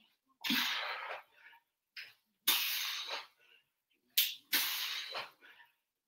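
A man's hard breathing during sit-ups: a quick breath in followed by a longer forceful breath out, three times, about every two seconds.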